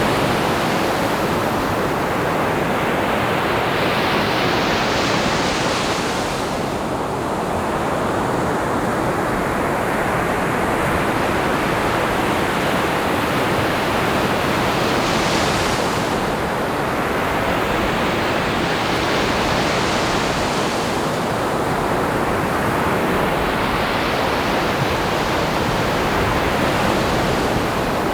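Ocean surf: a continuous rush of breaking waves, swelling and easing as successive waves come in, with bigger crests about 5, 15 and 21 seconds in.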